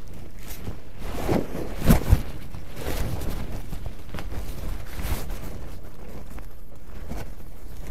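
Knocks and scuffs as someone handles an old wooden window frame, with two heavy knocks about two seconds in and a few lighter clicks after, over a steady background hiss.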